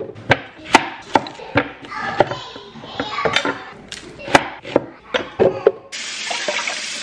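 Chef's knife chopping apple and onion on a wooden cutting board: an irregular string of sharp chops and taps. Near the end a short burst of steady hiss starts and stops abruptly.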